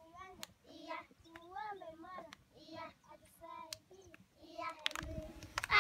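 Children's voices singing faintly in short phrases, with a few sharp clicks; the singing grows louder near the end.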